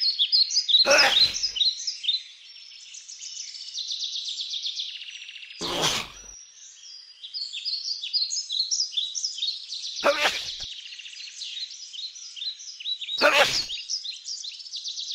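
A small bird twittering and chirping steadily, broken four times by a short, sharp sneeze, every four seconds or so. The sneezing is the sign of a bird with a cold.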